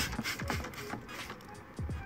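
Background music, with the tail end of hand scrubbing strokes at the very start.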